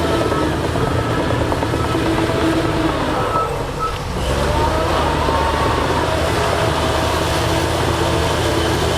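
Heavy earthmoving machine's diesel engine running steadily, with a wavering higher whine over it and a brief drop in level about four seconds in.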